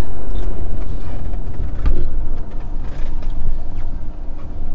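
Car cabin noise while driving: a loud, steady low rumble of road and engine noise, with a faint steady hum underneath.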